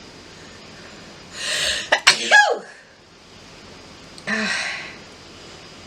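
A woman sneezes once, set off by sniffing white pepper: a noisy drawn-in breath, then a sudden burst whose voice falls in pitch. About two seconds later comes a short breathy vocal exhale.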